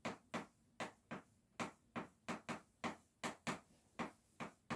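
Chalk writing on a blackboard: a string of short, sharp taps and scrapes at irregular spacing, about three a second, one for each stroke of chalk.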